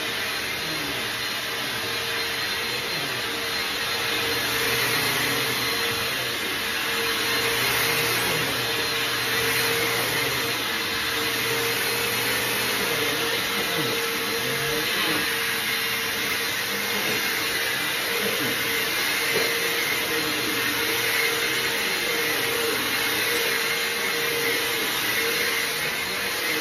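Vacuum cleaner running steadily: a continuous whooshing hiss over a steady hum, with small swells and dips in level throughout.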